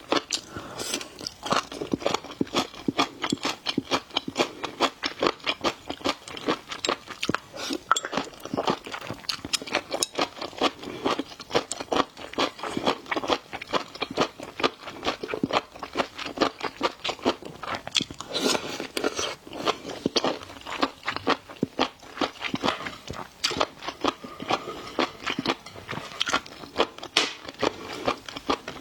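Close-miked eating of seafood: rapid crunchy bites and wet chewing, many crackles a second, without a pause.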